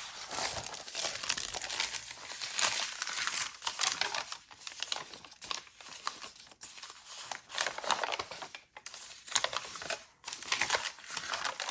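Paper pages of a handmade junk journal rustling and crinkling as they are turned and handled, in irregular bursts with brief pauses.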